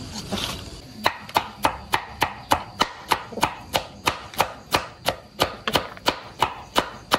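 A knife chopping green plants in a steady rhythm, about three sharp strokes a second, starting about a second in.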